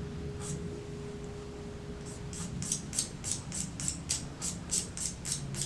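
A last guitar note dying away, then from about two seconds in a quick, regular scratching, about three to four short strokes a second.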